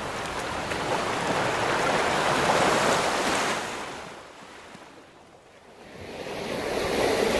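Ocean surf washing onto a sandy beach, a steady rushing noise that fades down about four seconds in and swells back up about two seconds later.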